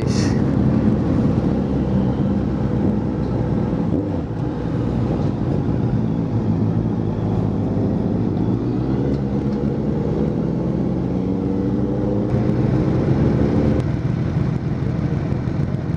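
Honda CBR 650F's inline-four engine running as the motorcycle rides off, its pitch climbing steadily from about halfway through under acceleration and then dropping suddenly near the end.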